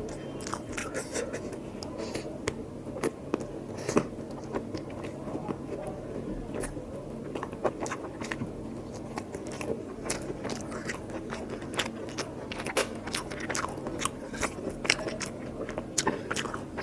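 Close-miked eating of mutton curry and rice: steady chewing and biting with many short, sharp wet mouth clicks and smacks, the sharpest about four seconds in.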